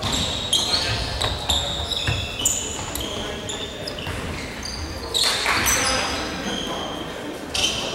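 Basketball shoes squeaking on a hardwood gym floor, many short high squeaks one after another, with knocks and voices echoing in the large hall.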